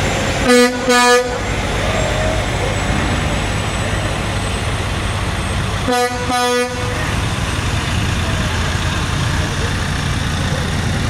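A vehicle horn giving two short honks, then two more about five and a half seconds later, over an engine running steadily.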